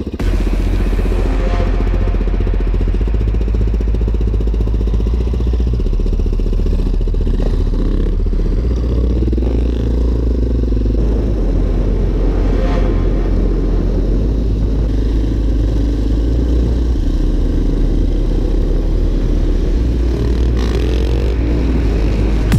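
Single-cylinder four-stroke KTM motorcycle engine running steadily at road speed, heard from onboard with a heavy low rumble of wind on the microphone. The revs rise and fall around the middle.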